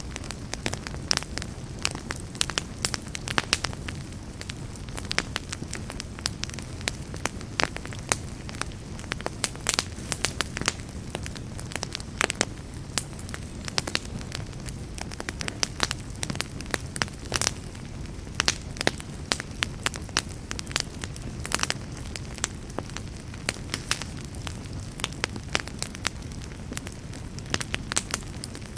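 Fireplace fire burning, with a steady low rumble and frequent irregular crackles and pops of the burning wood.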